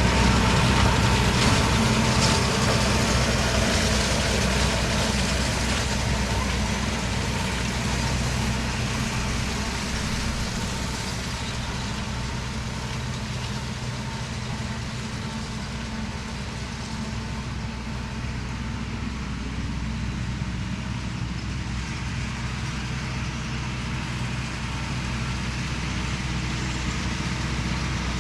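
Tractor engine running steadily while it pulls a John Deere round baler, with the baler's machinery adding a steady mechanical noise and a faint high hum. The sound fades gradually over the first half, then holds steady.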